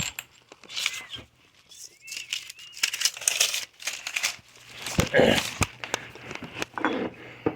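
Irregular rustling and crinkling with scattered knocks and clicks, from someone moving about and handling things after climbing in through a window.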